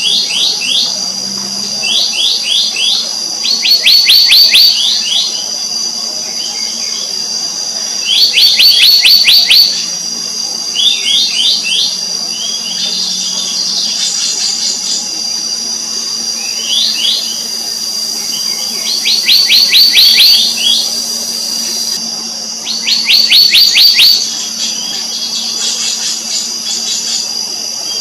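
Black-naped monarch calling: short runs of rapid, sharp falling notes, each run lasting about a second and repeated every two to three seconds, over a steady high-pitched whine.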